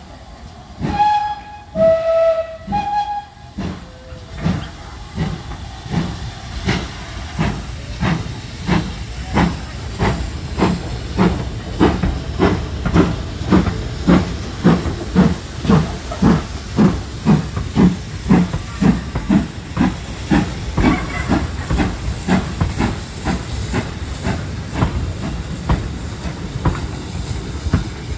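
Great Western steam locomotive sounding its whistle in three short notes, the middle one lower. It then works past with its exhaust beating about twice a second, the beats loudest mid-way and giving way near the end to a steady rushing noise as the wagons roll by.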